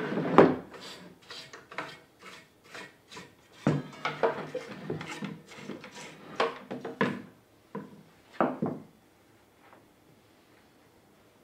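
Hard parts being handled: an irregular run of clacks, knocks and scraping rubs, stopping about nine seconds in.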